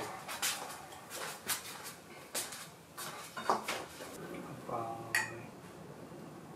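Tableware clinking and knocking: a series of sharp clicks and taps from dishes and cutlery, with a short voice-like sound about five seconds in.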